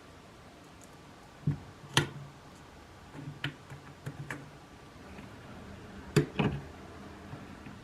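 Irregular sharp clicks and knocks of small hard objects being handled, the loudest about two seconds in and a pair just past six seconds.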